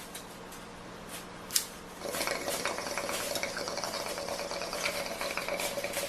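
A sharp click, then water running for about four seconds, starting about two seconds in and stopping abruptly.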